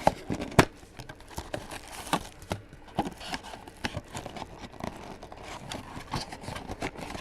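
Trading cards and card packs being handled on a table: irregular taps and clicks, loudest in the first second.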